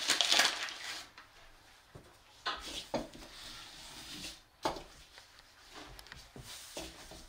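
A paper flour bag rustles in the first second as a hand reaches in for flour. After that, a long, thin wooden rolling pin rolls out a round of dough on a table, with irregular rubbing and light wooden knocks against the tabletop.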